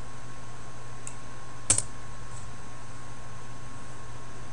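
A single sharp computer-keyboard keystroke a little before halfway, with a fainter tap shortly before it, over a steady electrical hum and faint high tone from the recording. The keystroke enters a typed terminal command.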